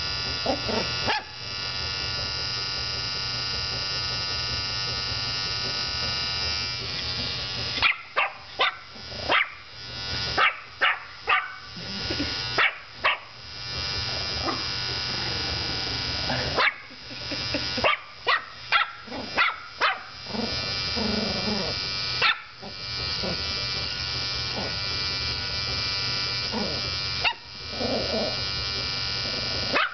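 Electric beard trimmer buzzing steadily, left running on the rug. A Yorkshire terrier barks at it in quick runs of short sharp barks about a third of the way in and again past the middle.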